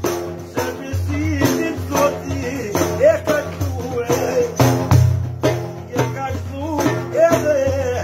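A man singing while beating a large frame drum with metal jingles, a def, in a steady rhythm of about three strokes a second, the jingles rattling on each stroke.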